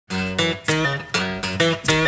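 Acoustic guitar strumming rhythmic chords, a sharp stroke about every half second.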